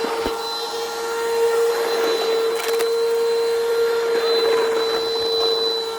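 Vacuum cleaner running with a steady motor whine, with a couple of short clicks near the start and around two and a half seconds in.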